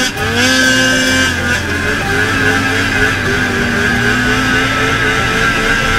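Polaris snowmobile engine revving hard as the sled skims across open water. Its pitch climbs about half a second in and then holds high.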